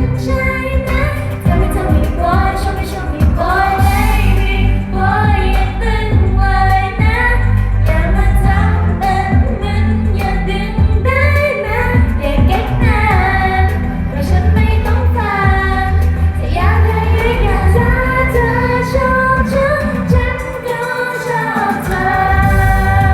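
Pop song with a high female lead voice singing a melody over a strong, steady bass line. The bass drops out briefly about twenty seconds in.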